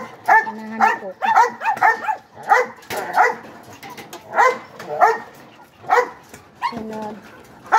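Pugs barking over and over in short, sharp barks, a few a second with brief gaps.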